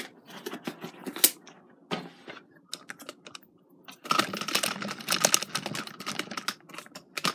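Spiralizer's cardboard box and packaging being opened and handled: a run of clicks and rustling, busiest in the second half.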